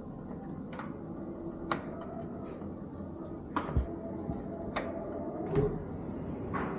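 Sliding glass balcony door being opened by hand: about six sharp clicks and two low thumps from the frame and its track, over a steady background hum.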